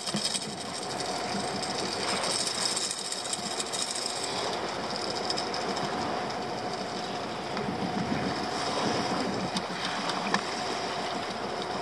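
Small boat's outboard motor running steadily.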